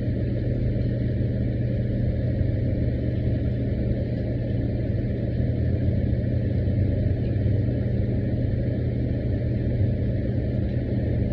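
Steady low mechanical hum with a constant droning pitch, unchanging throughout.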